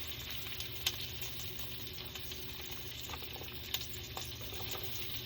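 Hickory bacon frying in a pan with onions and bell peppers, a steady sizzle broken by two sharp ticks, about a second in and near four seconds.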